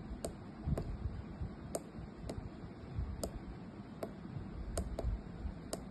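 Small tactile pushbutton on a breadboard clicking as it is pressed and released over and over, a dozen or so sharp clicks at uneven spacing, some in quick pairs.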